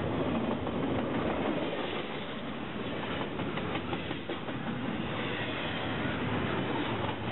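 Double-stack intermodal well cars of a freight train rolling past close by: a steady rumble of steel wheels on rail, with some clicking as the wheels cross rail joints.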